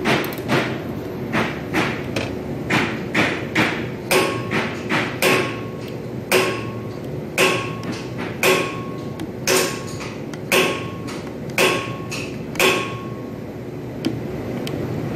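Solenoid valves of a Zanasi industrial inkjet printhead clicking as they are fired one at a time from a push-button test panel, a check of each valve after its plug has been replaced and adjusted. The sharp clicks come quickly at first, then settle to about one a second, each later one with a short faint ring, over a steady hum.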